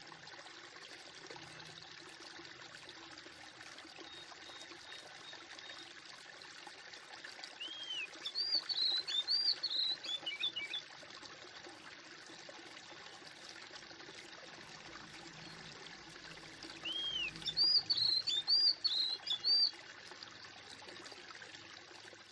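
Steady trickling water with a small bird singing two short phrases of quick arched chirps, about ten seconds apart.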